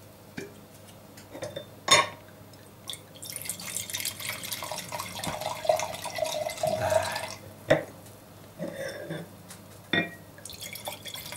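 Red wine pouring from a bottle into a glass wine glass, a steady splashing pour lasting about four seconds. A sharp click comes about two seconds in, more clinks follow, and a second pour into another glass begins near the end.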